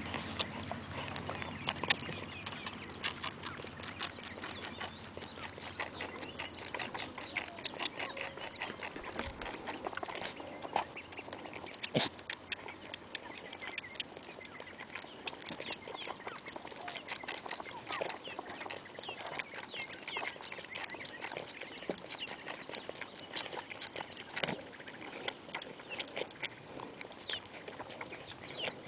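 Two Nigerian Dwarf goat kids sucking hard on bottle nipples: a dense run of quick wet smacks and slurping clicks, with a few sharper clicks standing out.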